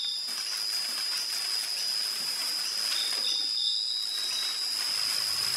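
Night-time insect chorus: a steady high-pitched ringing trill over a hiss, with a short run of quick chirps right at the start and again about three seconds in.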